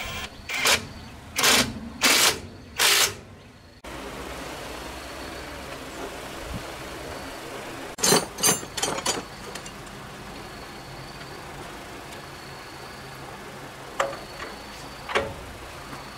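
A handheld power tool at a diesel engine's starter, run in four short bursts in the first few seconds. About eight seconds in, metal tools clink together, and near the end come a few sharp metal knocks.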